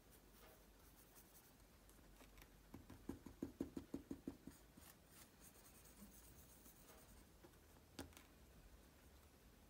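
Faint dabbing and scraping of a small paintbrush mixing egg tempera paint on a palette plate: a quick run of taps about three seconds in, then a single sharp tap about eight seconds in.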